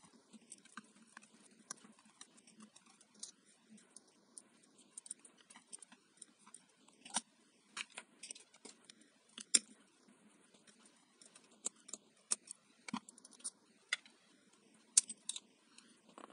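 Irregular small clicks and taps of plastic and metal parts as a hand blender's electric motor is taken apart by hand, its end cap and armature being worked loose; a handful of sharper clicks stand out.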